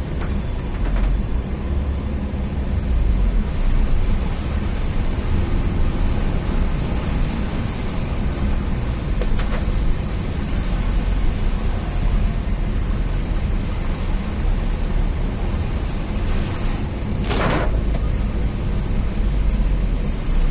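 Heavy rain: a steady hiss over a low rumble, with one brief louder rush about seventeen seconds in.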